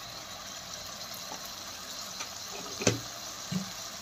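Spice paste sizzling and bubbling steadily in hot oil in a kadai, with a sharp knock about three seconds in and a softer one just after.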